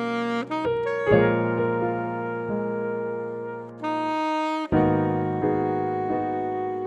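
Alto saxophone playing a slow jazz ballad melody in long held notes over piano chords, with new chords struck about a second in and again near five seconds.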